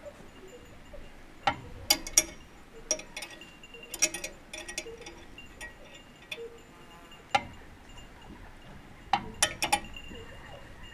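Small metal hardware clinking and tapping as nuts and a knob are handled and threaded onto a threaded rod, irregular sharp clicks with a brief metallic ring, in clusters with short pauses between.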